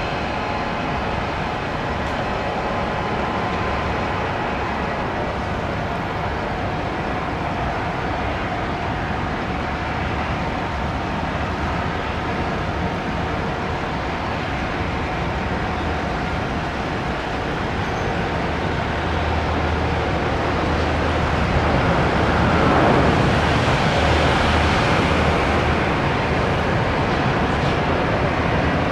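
Airbus A320 jet airliner landing: steady jet-engine whine over a low rumble on the approach, swelling to its loudest about three-quarters of the way in during the landing roll.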